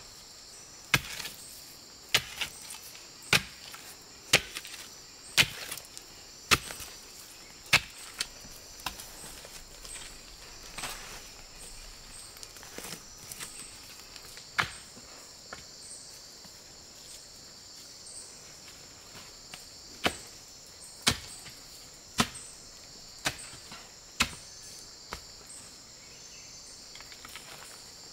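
Wooden digging pole stabbing into packed earth, sharp thuds about once a second, thinning out in the middle and picking up again later. A steady high drone of insects runs underneath.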